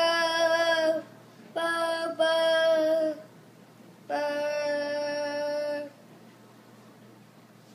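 A voice singing three long held notes, each about one and a half seconds, the second with a brief break in the middle and the last a little lower, then quiet room tone.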